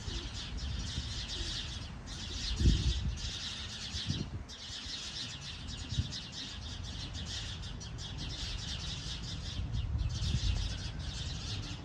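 A flock of sparrows chirping in a dense, rapid, unbroken chatter, with two brief lulls. Beneath it a low rumble, with a few dull thumps in the first half.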